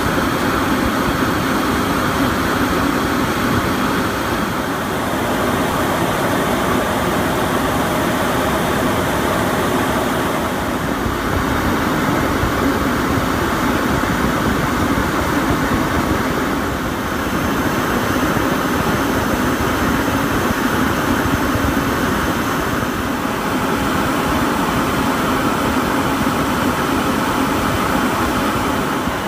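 Steady cockpit noise of a Cessna Citation CJ3 business jet in high-altitude cruise: an even rushing drone of airflow and its twin turbofan engines, heard from inside the cabin.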